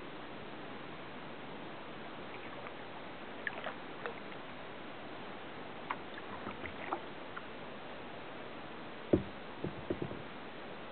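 Kayak paddling: the paddle dipping and dripping with light splashes and ticks over a steady hiss. A louder thump comes near the end, followed by a few smaller knocks.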